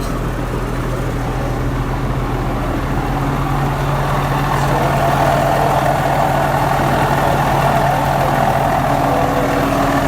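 Heavy diesel engine running steadily, its pitch stepping up slightly about three seconds in, with a rushing noise that grows louder in the second half.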